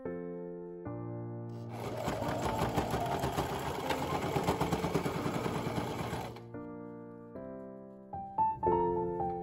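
Domestic electric sewing machine running a straight stitch through layered fabric, a dense rapid ticking of the needle mechanism that starts about two seconds in and stops after about four and a half seconds. Soft piano music plays throughout.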